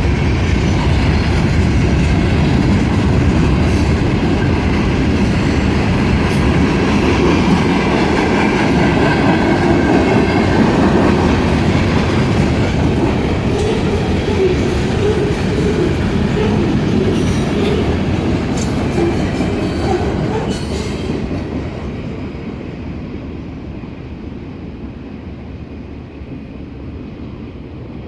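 Norfolk Southern freight train rolling past on the rails, loud and steady with clicks from the wheels, then dying away from about twenty seconds in as the train moves off.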